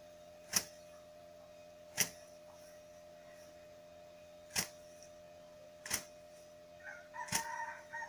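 Rice sheaves beaten by hand against a slanted slab to thresh out the grain: a sharp whack every one and a half to two and a half seconds, five in all. A rooster crows near the end, over the last strike.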